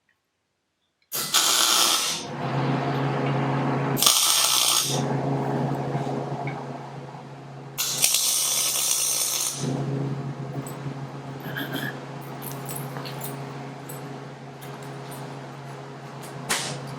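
MIG welder laying three short tack welds, each a loud crackling hiss lasting one to two seconds, over a steady electrical hum.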